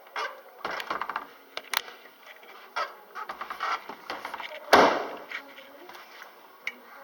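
Manual door of a platform lift being handled: a run of clicks and knocks, with one loud clunk a little under five seconds in.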